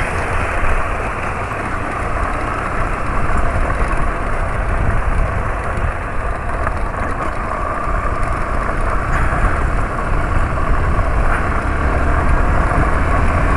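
Motorcycle riding over a cobblestone road: the engine running steadily under constant wind noise and tyre rumble.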